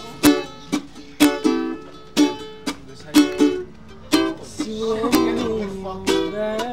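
Acoustic string instrument strummed in a steady rhythm, with sharp chord strokes about twice a second and the chords ringing between them.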